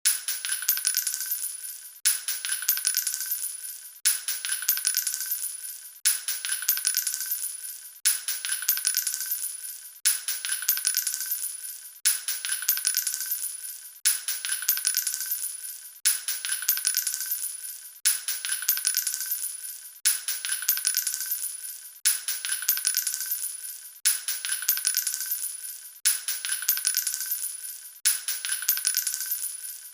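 Small capsules dropping onto a hard floor, each drop a sharp hit followed by a scatter of bouncing clicks with a bright ring that dies away. The same drop repeats as a loop about every two seconds.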